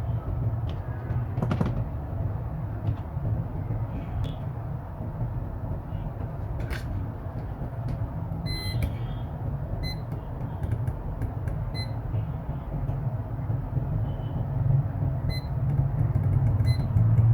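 Short electronic beeps, a handful spaced a second or more apart from about halfway in, over a steady low hum.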